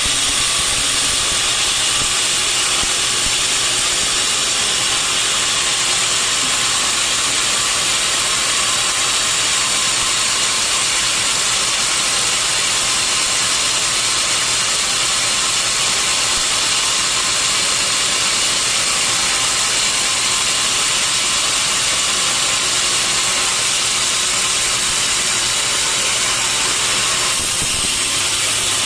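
Band sawmill sawing through a large mahogany log: a steady, loud hiss of the blade in the wood over a low, even motor hum.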